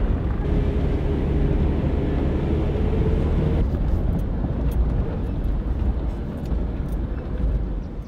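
Engine and road noise inside a moving vehicle's cabin, a steady low rumble. In the second half, on a dirt road, scattered sharp ticks and rattles join it.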